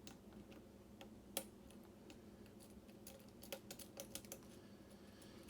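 Faint clicks of a lock pick working the pin stacks of a Schlage mortise cylinder under tension, with one louder click about a second and a half in and a quick run of clicks near the end.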